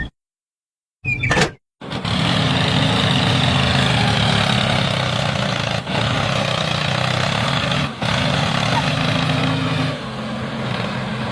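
A large farm machine's diesel engine, typical of a combine harvester, running steadily. It starts about two seconds in after a second of silence and a brief burst, and carries a low engine drone with a noisy mechanical rattle above it.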